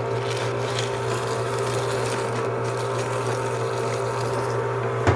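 Paper shredder motor running steadily as it shreds receipts, with a single sharp click near the end.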